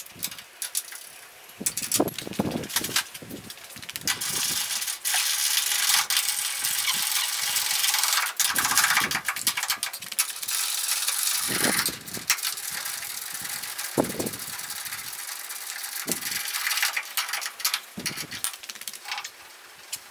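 A ratchet running bolts in, a long stretch of fast rasping clicks, among sharp metallic clinks and knocks of tools and steel suspension parts.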